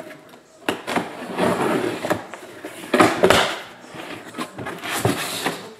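Cardboard packaging being handled as a case of cards is opened: irregular rustling and scraping with sharp knocks, the loudest about three seconds in.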